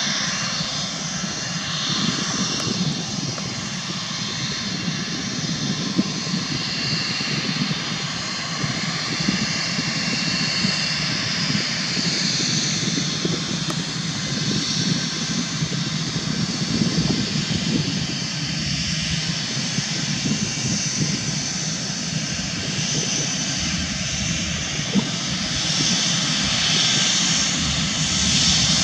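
Airbus A320-family airliner's twin jet engines running steadily as it rolls along the runway, a low rumble with a jet hiss above it, growing a little louder near the end.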